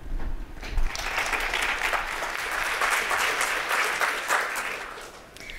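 Audience applauding, building up in the first second and tapering off near the end.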